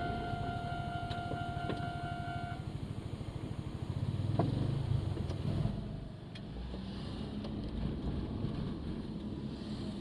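Railway level-crossing alarm sounding a steady pitched tone that stops about two and a half seconds in. Underneath, road vehicles' engines run, with one passing louder from about four to five and a half seconds in.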